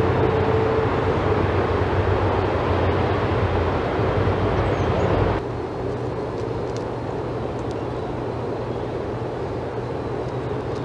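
Steady outdoor background rumble and hiss with a low hum, picked up by a yard livecam's microphone, like distant traffic or machinery. It drops a little in level at a cut about halfway through.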